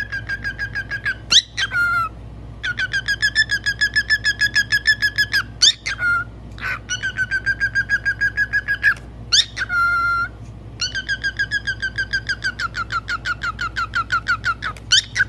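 Cockatiel chirping in long, rapid trains of short whistled notes on one pitch, about nine a second, broken every few seconds by a quick whistle that glides up or down.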